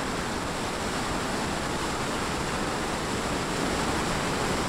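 Floodwater pouring over an overflowing check dam: a steady, even rush of water.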